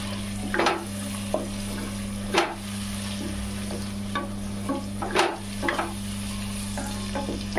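Wooden spatula stirring and scraping thick masala frying in oil in a stainless steel pot, in irregular strokes about a second apart over a continuous sizzle. A steady low hum runs underneath.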